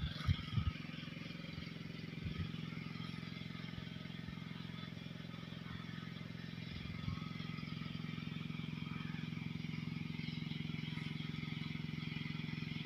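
A steady low motor hum, even in pitch throughout, with a few soft thumps in the first second.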